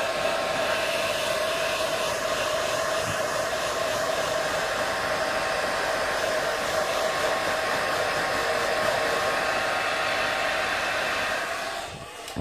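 Handheld hairdryer blowing steadily, a constant airy rush with a steady whine, drying a freshly bathed cockatiel; it cuts off near the end.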